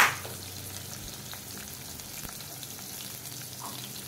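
Chopped onions sizzling steadily in hot oil in a kadai, along with the tempering of mustard seeds, dried chillies, curry leaves and garlic, as they begin to sauté. A single sharp knock comes right at the start.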